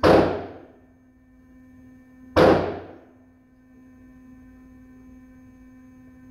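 Two single shots from an AR-15 rifle, about two and a half seconds apart, each echoing briefly off the walls of an indoor range, over a steady hum.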